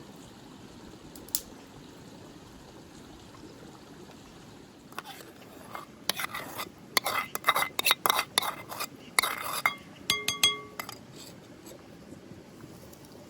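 Kitchenware handled during cooking: a single click, then a few seconds of dishes and utensils clattering, ending in a couple of ringing clinks of metal or glass.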